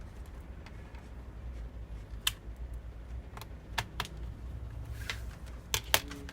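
Scattered light clicks and taps of plastic and metal as laptop parts and tools are handled during reassembly, about half a dozen, over a low steady hum.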